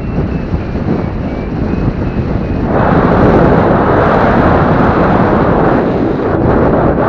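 Wind rushing over the microphone of a paraglider pilot's camera in flight, a steady roar that grows louder and brighter about three seconds in. A faint high beeping sounds under it in the first few seconds.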